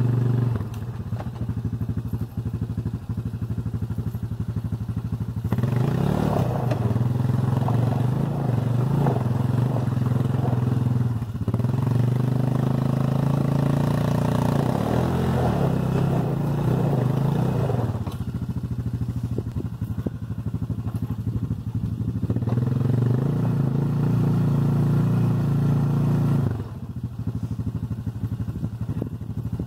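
Honda Recon ATV's single-cylinder engine revved hard in three long bursts of several seconds each, falling back to a low idle in between, as it pulls at a loaded dump cart.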